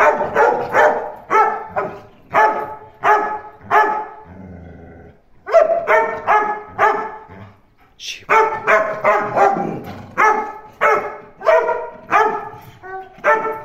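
Belgian Malinois barking repeatedly in fast runs of about three barks a second. It pauses for about a second and a half around four seconds in, and briefly again near eight seconds.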